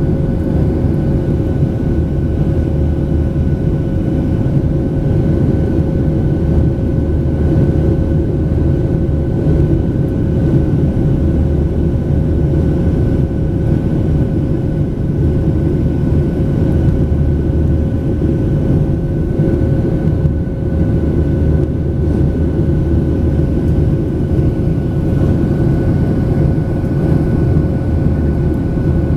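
Boeing 737-800's CFM56-7B turbofan engines and airflow heard inside the passenger cabin during the climb-out: a steady, loud rumble with two steady whining tones above it.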